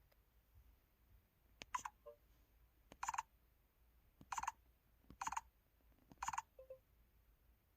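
LG KU2800 mobile phone's feedback sounds: five short electronic beeps about a second apart, with faint clicks just before some of them.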